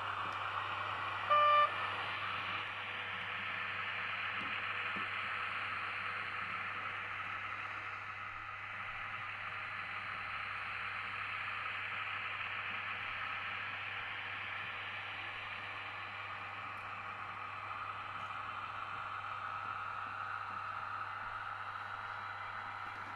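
H0 model locomotives running along the track: a steady whir and rolling hiss of the motors and wheels on the rails over a low hum. One short, high beep sounds about a second and a half in.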